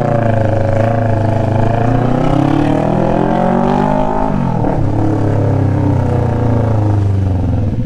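Kawasaki Ninja 400 RR inline-four engine revving through an SC Project exhaust: the revs climb slowly, drop sharply about four seconds in, then hold steady.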